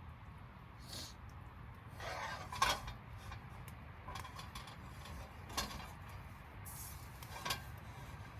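Camp cookware and utensils clinking and knocking, four or five sharp clanks with some rustling between them, as breakfast is being made.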